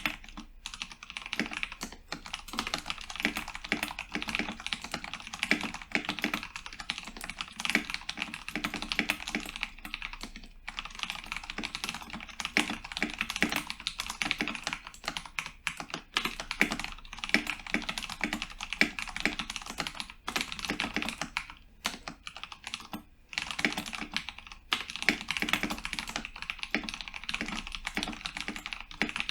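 Continuous fast typing on a modded Cooler Master MasterKeys Pro S mechanical keyboard with Cherry MX Brown switches: dense, rapid key clicks with a few short pauses.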